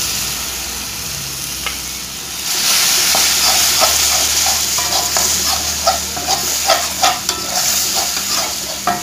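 Ground chilli, shallot and garlic spice paste sizzling in hot oil in a metal wok as it is fried until fragrant. A metal spatula scrapes and taps the pan in quick strokes. The sizzle grows louder about two and a half seconds in.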